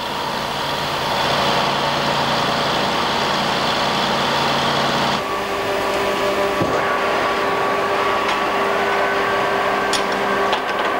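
Steady heavy-machinery noise with a low hum from engines working in a rock tunnel. About five seconds in it changes abruptly to the steady running hum of a brine ground-freezing plant's refrigeration machinery, with a steady whine held over it.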